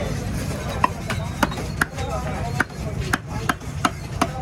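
Knife chopping through a stingray: about eight sharp chops at uneven spacing.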